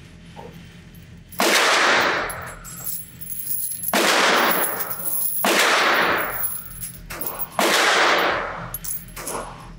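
Spent brass rifle casings pouring out of a mesh brass-catcher bag onto a table, clattering in four separate pours about a second each.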